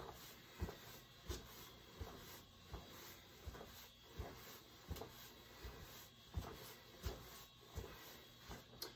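Footfalls of a person marching on the spot: faint, regular thuds, roughly three steps every two seconds.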